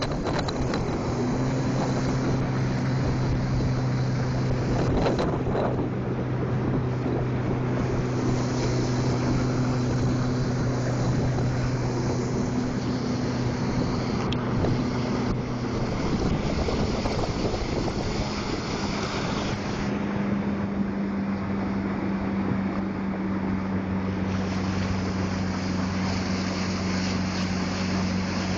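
A work boat's engine running steadily with a low droning note over a rushing of wind and water. About two-thirds of the way through, the engine note drops to a lower steady pitch.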